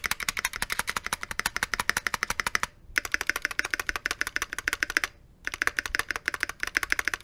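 Mechanical keyboard spacebar pressed over and over in quick succession, a rapid run of clicks. At first its stabilizer is unlubricated; after a brief pause about three seconds in, the stabilizer is lubricated.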